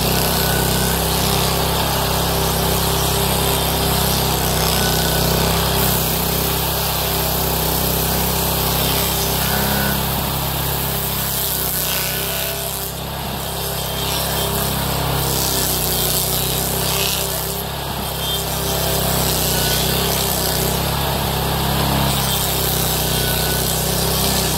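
Homemade stump grinder, a 13 hp Honda GX390 single-cylinder engine driving a toothed Blueshark cutting wheel, running steadily while the teeth chew into a birch stump, with wood chips spraying. The grinding noise eases briefly twice, about halfway through and again about three-quarters of the way.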